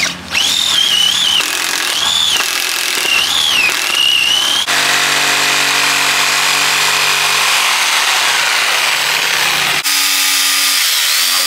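A cordless drill with a twist bit whines as it bores a starter hole through a wooden board, its pitch rising and falling with the trigger. About four and a half seconds in, it gives way to a corded jigsaw cutting through the board with a steady rasping buzz.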